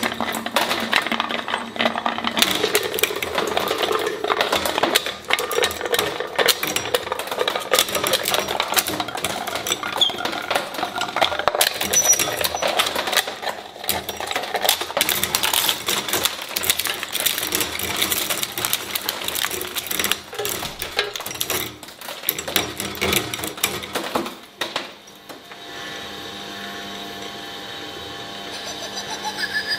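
Twin-shaft shredder's steel cutter blades turning and chewing on a squishy rubbery stretch-monkey toy, a dense rapid clatter and crackle. About five seconds from the end it gives way to a quieter, steady hum.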